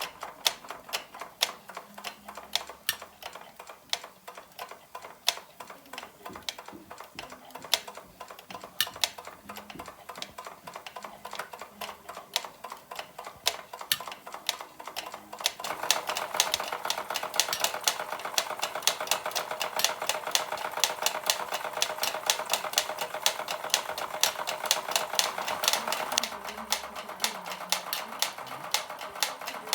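Doll 346/5 toy steam engine running and driving small metal Fleischmann models, a hammer mill and a blacksmith at an anvil, in a fast, regular tapping clatter. From about sixteen seconds in to about twenty-six seconds the clatter gets louder and denser.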